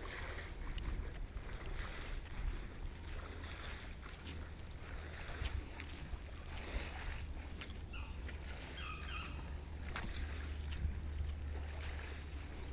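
Wind rumbling on the microphone of a handheld camera outdoors, with faint scattered taps and a brief chirp about nine seconds in.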